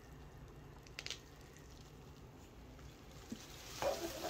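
Faint handling sounds of an antique doll head being turned in the hands over low room hum: a couple of light clicks about a second in, and a short louder sound near the end.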